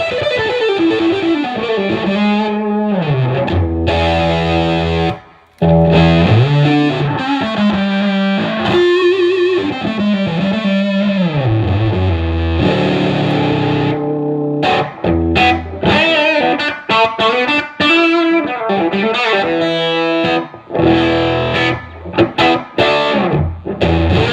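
Les Paul electric guitar through a fuzz pedal set to its germanium Fuzz Face side, into a Fender Bassman amp, playing distorted riffs with sliding notes. The playing stops briefly about five seconds in, then turns choppier and more staccato in the second half.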